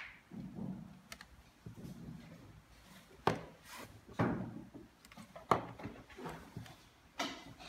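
Handling noise from a small plastic dash camera and phone on a desk: four sharp knocks and clicks over low rustling.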